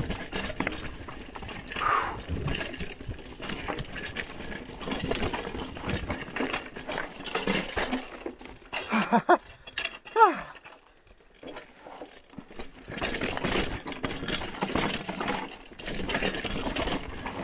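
Hardtail mountain bike clattering and rattling down a rough dirt trail: chain slap, frame and tyre noise over bumps. About halfway through come two short falling cries or squeals, then a brief quieter stretch before the rattling resumes.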